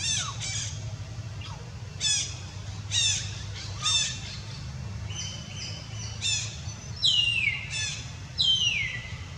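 Bird calls: a run of short, high squawks that fall in pitch, about one a second, then two longer calls sliding downward near the end. A steady low rumble runs underneath.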